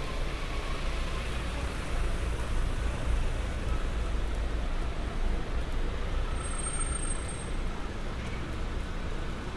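Steady city street traffic in the rain: a low engine rumble under an even hiss of rain and tyres on wet road.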